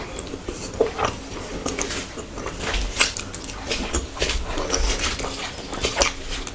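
Close-miked chewing and biting of food, with irregular wet mouth clicks and smacks; the sharpest come about three and six seconds in.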